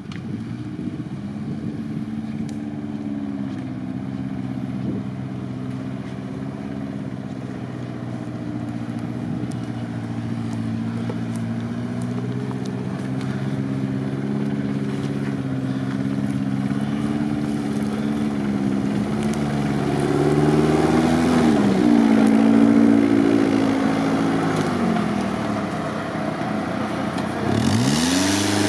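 Off-road 4x4 engine running under load, getting steadily louder, with the revs swinging up and down about two-thirds through and rising sharply again near the end.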